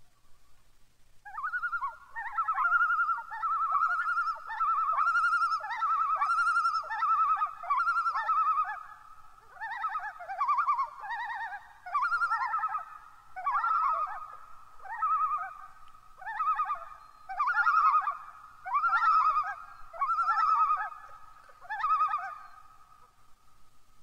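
Common loons calling to each other: a long run of wavering, quavering calls, phrased in bursts of about a second with short breaks, starting about a second in.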